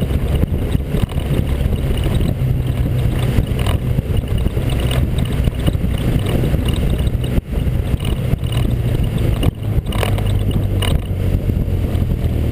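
Onboard sound of a vehicle driving through a road tunnel: a steady low engine drone under road and wind noise.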